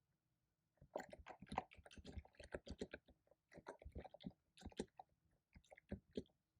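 Typing on a computer keyboard: quick runs of keystroke clicks in bursts, starting about a second in, with short pauses between runs.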